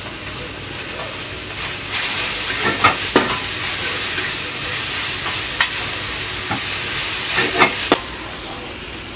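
Meat and vegetables sizzling in a wok over a gas burner, the sizzle growing louder about two seconds in, while a metal ladle clanks and scrapes against the wok several times.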